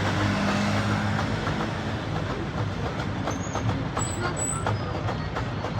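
Busy street noise: a steady engine hum under a wash of noise, with a run of light clicks and clatters between about three and five seconds in.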